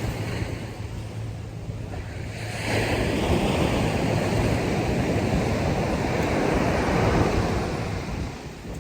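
Pacific Ocean surf breaking on a sandy beach: a wave swells and crashes about two and a half seconds in, then washes up and eases off near the end. Some wind buffets the microphone.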